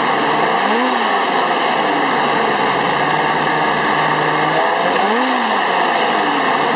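2003 Polaris Pro X snowmobile's two-stroke engine running loud and steady on a stand, its pitch swelling up and back down briefly about a second in and again near five seconds.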